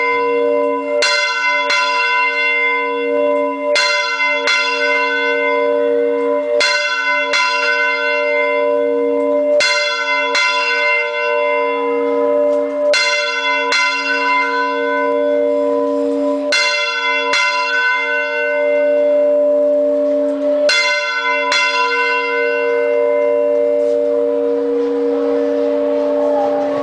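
Large swinging church bell struck by its clapper in pairs of strokes about every three seconds, each stroke leaving a long ringing hum. The gaps between pairs grow longer, and after the last pair about 21 seconds in the bell is left ringing down.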